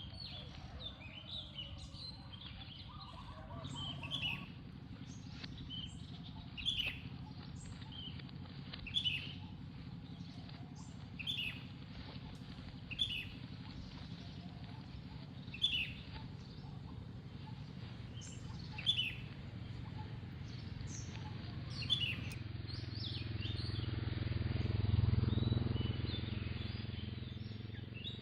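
Short high chirps repeating about every two seconds over a steady low rumble, which swells and fades again near the end.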